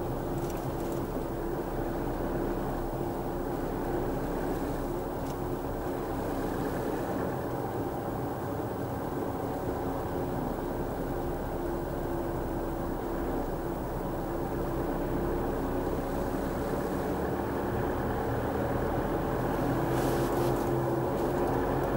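Steady driving noise of a car heard from inside the cabin at highway speed: tyre and road rumble with engine hum, growing slightly louder near the end.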